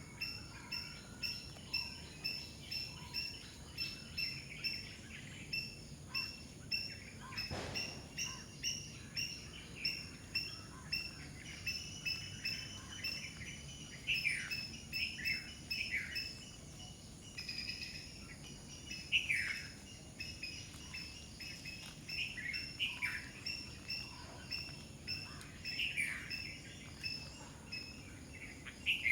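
Wild birds calling. One bird repeats a short note about once a second, then several birds join in with quick falling chirps from about halfway through. A faint, steady high-pitched insect hum runs underneath, and there is a single sharp click near the middle.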